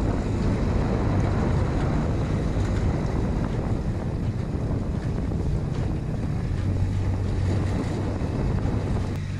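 Mercury 15 hp Pro Kicker four-stroke outboard running steadily, pushing the boat along at slow trolling speed, with wind buffeting the microphone and water washing past the hull.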